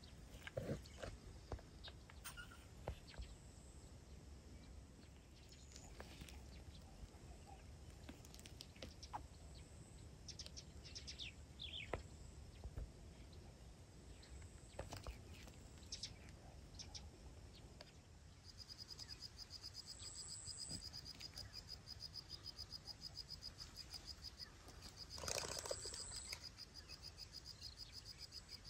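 Faint open-country ambience: scattered short bird chirps, then from about two-thirds of the way in a steady, rapidly pulsing high insect trill. A brief louder sound comes near the end.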